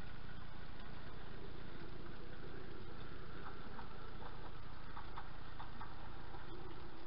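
Model train running: a steady rumble of the locomotive's motor and the cars' wheels on the track, with a run of light clicks about halfway through.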